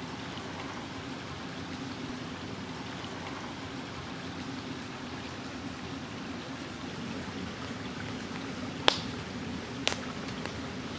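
Steady rushing of a river flowing past. Near the end come two sharp clicks about a second apart.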